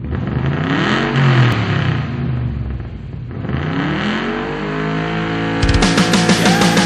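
An engine-like revving sound effect that sweeps up and back down in pitch twice. About five and a half seconds in, loud rock music with heavy drum hits starts.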